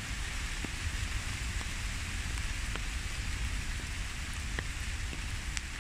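Steady patter of rain falling through tree foliage, with a few separate drops ticking close by and a low rumble underneath.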